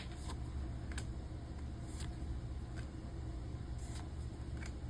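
Pokémon trading cards being handled and flipped through, giving faint scattered clicks and short rustles over a steady low hum.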